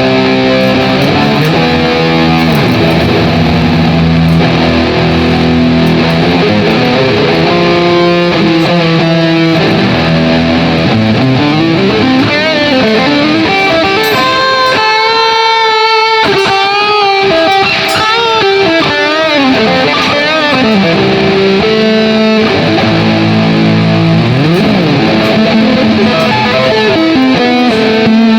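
Difergio MSV electric guitar played through effects: melodic lines of sustained notes with string bends and wavering vibrato, strongest in the middle stretch.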